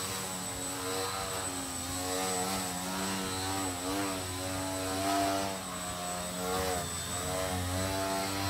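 Electric motor and propeller of a foam 3D RC airplane hovering nose-up, a steady whine that wavers up and down in pitch every second or so.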